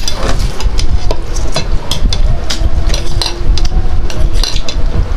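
Eating sounds close to the microphone: a quick run of small clicks and taps from food and utensils over a steady low rumble.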